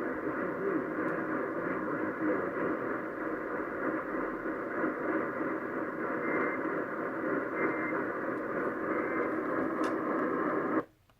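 Distant AM radio reception of KOA carrying Colorado's Emergency Alert System Required Monthly Test, thin and narrow-sounding and heavily mixed with noise from poor reception. It cuts off abruptly near the end.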